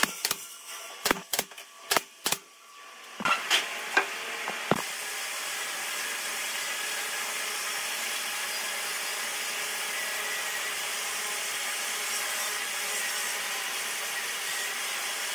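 Woodworking sounds: a run of sharp knocks on wood for about the first five seconds, then a steady hissing noise of a tool working wood, such as sawing or sanding.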